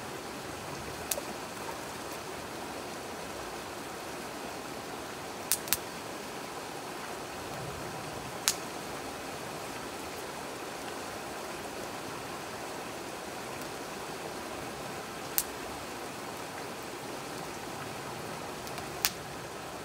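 Small wood fire of split kindling crackling in a metal fire pit, with six sharp pops spread through, over the steady rushing of a river.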